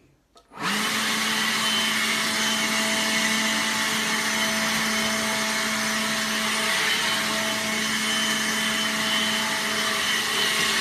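Hoover ONEPWR cordless blower switching on about half a second in and running steadily at full speed: an even rush of air over a steady motor hum.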